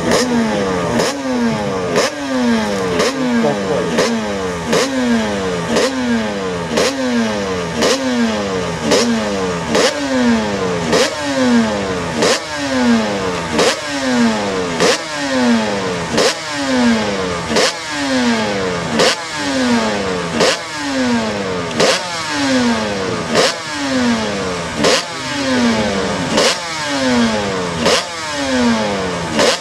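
Honda NSR500 two-stroke V4 race engine held on stands while its throttle is blipped over and over. About once a second it revs up sharply and falls back, in a steady rhythm.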